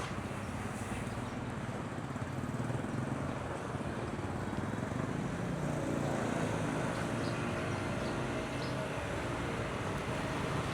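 Street traffic: motorbike engines running past with a steady hum that grows a little louder towards the middle.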